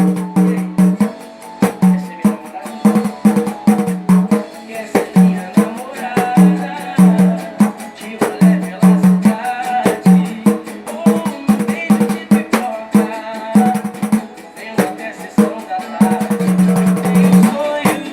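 Pandeiro played in a steady, fast pagode rhythm: dense jingle strokes with a recurring low open tone from the drumhead, over a recorded pagode song with singing.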